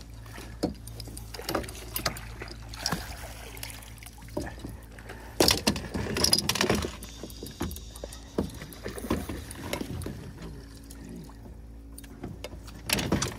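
A hooked redfish being landed with a net beside a boat: irregular knocks and thumps on the boat, with a louder spell of splashing about halfway through.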